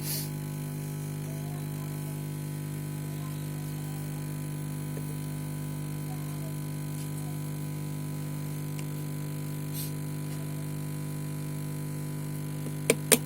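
Steady low electrical hum on a repair bench, with three sharp clicks in quick succession near the end.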